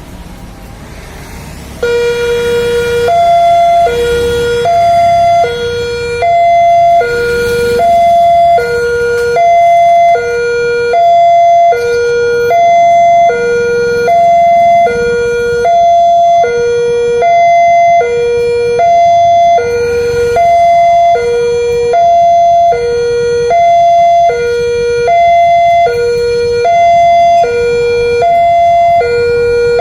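Railway level-crossing warning siren sounding. It is a loud electronic two-tone siren that starts abruptly about two seconds in and alternates steadily between a low and a high tone, each held for under a second. The tone is off-key. It signals that a train is coming and the crossing is closing.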